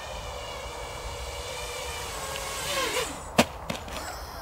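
Eachine Wizard X220 quadcopter's brushless motors whining with several tones that waver and bend as it comes in to land, then a sharp loud knock about three and a half seconds in as it hits down on the ground, a smaller knock just after, and the motor whine stops. It is a hard landing that leaves the quad upside down.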